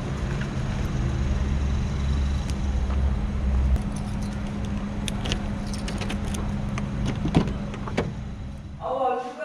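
Car keys jangling in hand, with scattered light clicks, then a louder click of a car door latch being opened about seven seconds in, over a steady low hum.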